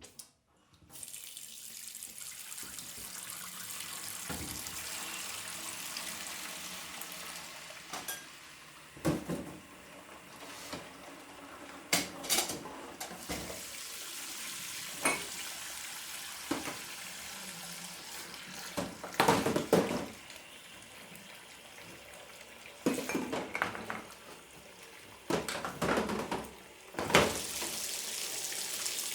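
Dishes being washed at a sink under a running tap: a steady stream of water with dishes and cutlery knocking and clattering every few seconds.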